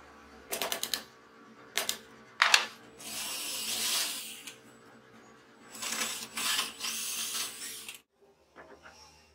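A hammer taps a screwdriver used as a punch into a laminated wooden block: a quick run of taps, two more, then one hard strike. A cordless drill then bores into the wood twice, from about three seconds in and again from about six seconds in.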